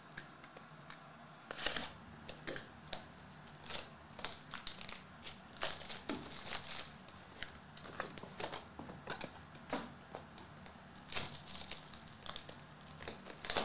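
Plastic shrink-wrap crinkling and tearing as sealed trading-card hobby boxes are unwrapped by hand: irregular crackles, starting about a second and a half in.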